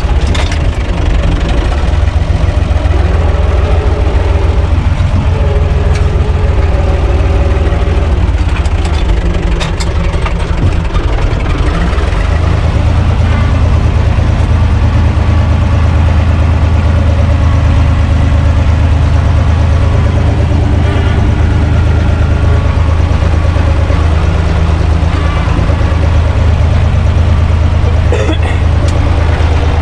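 Universal U445 DT tractor's four-cylinder diesel engine running steadily under load, heard from inside the open cab while it pulls a rotary tiller through the soil. About twelve seconds in the engine note changes and settles into a steadier low drone.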